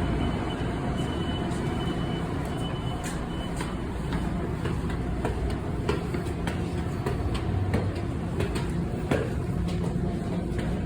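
Commuter train running with a steady low rumble and scattered clicks and knocks. A high intermittent beeping tone sounds for the first three seconds or so.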